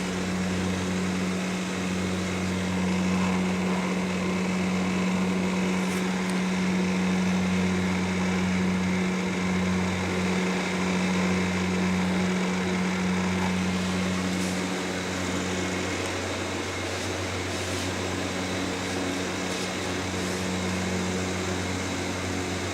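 Steady mechanical hum, a low even drone that eases slightly about two-thirds of the way through.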